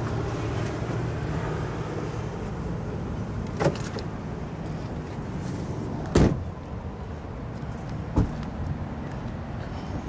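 Car driving slowly, heard from inside the cabin: a steady low rumble of engine and tyres. Three short knocks break it, the loudest about six seconds in.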